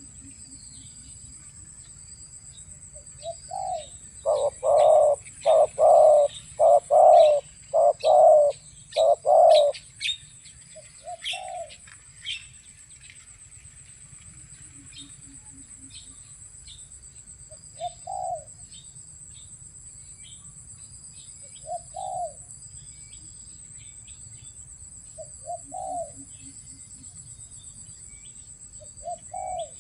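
Spotted dove cooing: a run of loud, deep coos a few seconds in, then single short coos every few seconds. A steady high-pitched insect drone and faint small-bird chirps run underneath.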